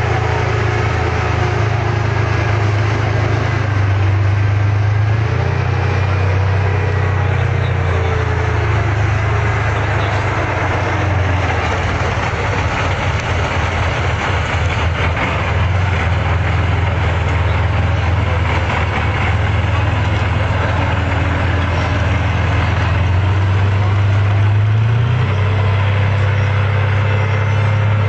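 Diesel engine of a tracked WZT armoured recovery vehicle running under load as it drives through mud, a loud, steady deep drone whose note shifts a few times and climbs near the end.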